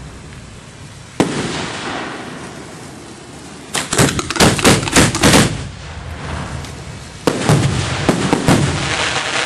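Display fireworks firing from mortar tubes at close range: a sudden launch about a second in that dies away slowly, a quick string of sharp cracks around four to five seconds in, and another launch about seven seconds in, followed by crackling.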